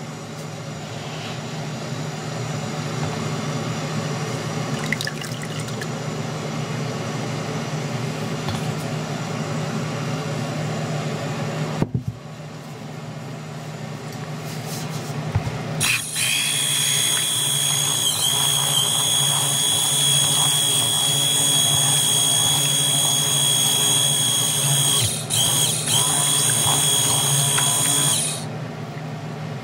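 Stick (immersion) blender mixing cold-process soap oils and lye solution toward trace. It runs in spells: a steady churning, a short stop about twelve seconds in, then a loud high-pitched motor whine that dips once briefly and cuts off shortly before the end.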